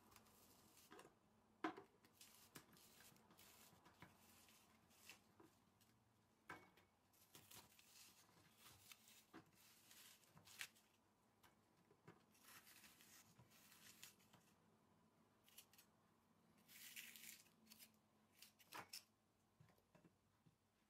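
Onion and garlic being peeled and cut by hand: faint, irregular crisp crackles and knife strokes, with one sharper click about two seconds in.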